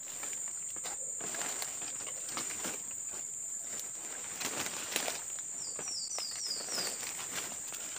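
Footsteps through dry leaf litter and undergrowth in tropical forest, over a steady high insect buzz. A brief run of about five quick, high, falling chirps about two-thirds of the way in.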